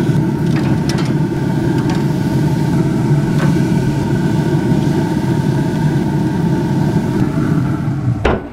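Pellet grill running hot with a steady rumbling hum. A few light clicks of metal tongs on the grill grate.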